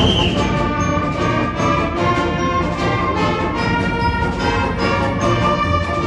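A school symphonic band playing: brass and woodwinds holding chords over evenly repeating percussion strikes.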